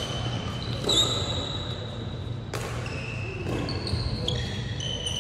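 Badminton rally: rackets striking the shuttlecock in several sharp hits, the loudest about a second in, with short high squeaks of court shoes on the wooden floor between them.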